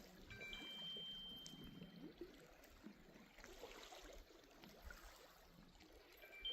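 Faint water lapping and gurgling around a kayak on a lake. A thin, steady high tone sounds for about a second and a half soon after the start.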